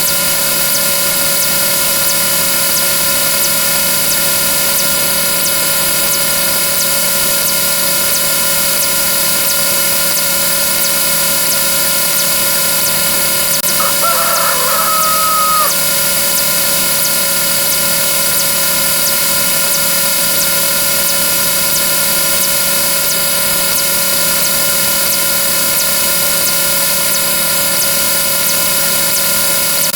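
Rooster crowing sound effect, once about halfway through, over a steady, loud droning din of many overlapping tones.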